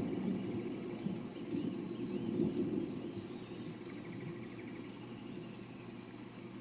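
A low roll of thunder dying away over the first few seconds, while small birds chirp in short calls. A steady high insect drone runs underneath.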